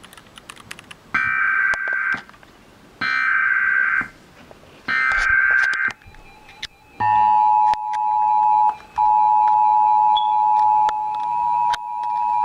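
Emergency Alert System tornado warning opening: three short bursts of warbling data tones (the SAME header), about a second each and a second apart, then about seven seconds in the loud, steady two-tone EAS attention signal, with a brief break near the middle. The sequence announces a tornado warning broadcast.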